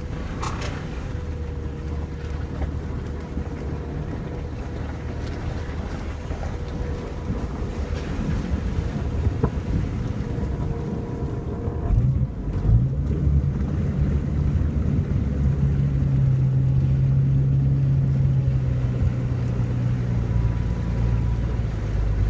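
Jeep Cherokee XJ's engine running as the SUV fords a flooded creek, with water washing around it. About twelve seconds in, the engine note gets louder and deeper as it pushes through the deepest water.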